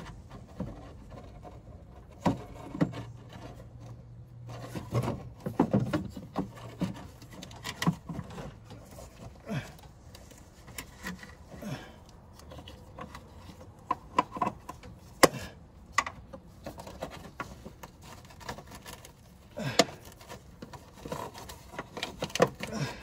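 Gloved hands working a Polaris RZR Turbo's air filter in its plastic airbox: scattered rubbing and scraping with irregular clicks and knocks as the filter is shifted to seat its tabs in the slots.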